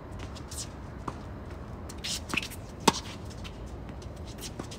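Tennis ball struck by rackets and bouncing on a hard court during a doubles rally: a few sharp pops, the loudest about three seconds in, another about a second in and one near the end.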